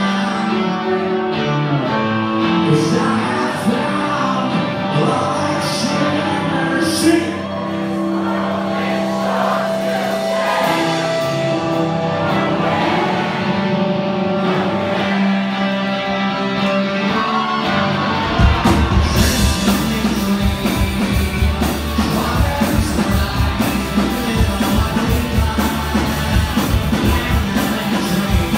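Rock band playing live in a hall: singing over electric guitar, then about two-thirds of the way through the drums and full band come in with a steady beat.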